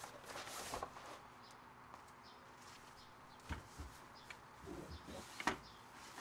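Padded fabric camping-gear bags being shifted and pushed into place on shelves: cloth rustling, then a few short, soft thumps about halfway through and near the end.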